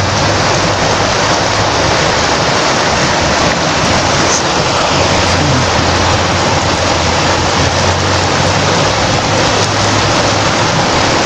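Steady rush of a swollen, fast-flowing river.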